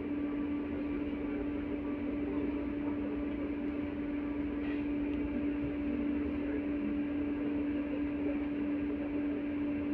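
Interior noise of an LVS-86 articulated tram: a steady electrical hum at one constant pitch over a low rumble.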